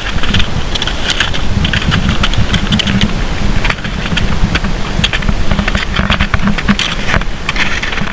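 Wind buffeting the microphone with a heavy low rumble, over a dense run of crunching and clicking from skis and poles on crusted snow.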